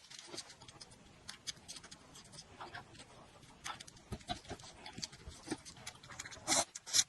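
Close-miked eating sounds: chewing and lip-smacking, heard as a scatter of small wet clicks, with two louder smacks or slurps near the end.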